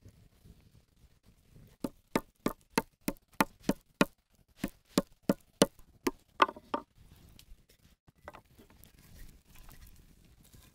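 Wooden meat mallet pounding thin slices of raw beef tenderloin on a wooden cutting board to tenderise them: about fifteen sharp blows, roughly three a second, with a brief pause midway, stopping a little over halfway in.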